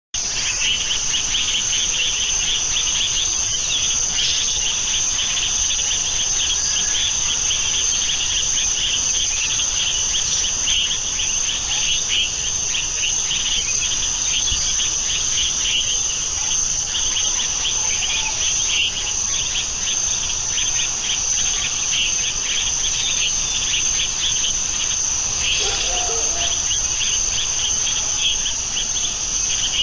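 Chorus of insects: a steady high-pitched whine with a fast pulsing trill beneath it, running without a break.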